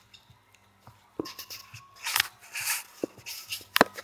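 Hard plastic knocking and scraping as a 1-inch PVC pipe is slid through a PVC reducer adapter. There is a knock about a second in, a short scrape about two seconds in, and a sharp click near the end.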